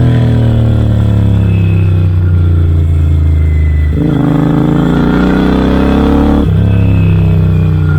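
Royal Enfield Interceptor 650's parallel-twin engine through Red Rooster Performance aftermarket exhausts while riding: revs ease off for the first half, then climb under throttle about halfway through, with a gear shift dropping the revs about two-thirds of the way in before they pull on again.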